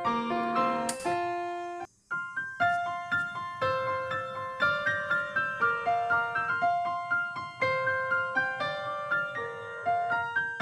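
Background music: a light keyboard melody of short, decaying notes. It breaks off for about half a second near two seconds in, then carries on.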